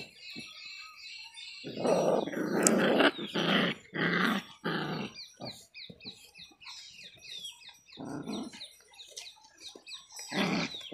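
Two puppies play-fighting, growling in rough bursts: a long run of growls about two to five seconds in, then shorter ones near eight and ten seconds.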